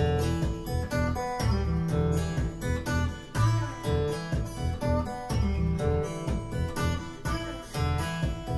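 Acoustic guitar music with strummed and plucked notes over a strong bass line, played back through hi-fi bookshelf loudspeakers and recorded binaurally in the room.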